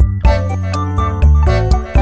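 Upbeat children's background music with bright synthesizer notes, a steady bass line and a regular beat.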